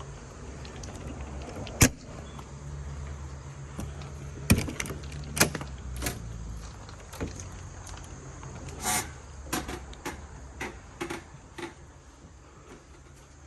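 A travel trailer's entry door and steps being handled as someone goes in: a sharp knock about two seconds in, two more about four and a half and five and a half seconds in, then a run of lighter clicks and taps, over a low steady hum that fades about halfway through.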